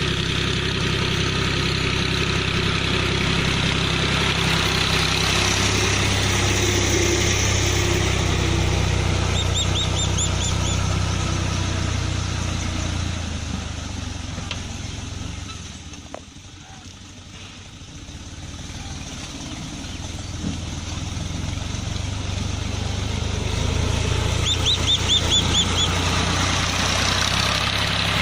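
A farm machine's engine running steadily. It fades to its quietest a little over halfway through, then grows louder again, with two short runs of quick high chirps over it.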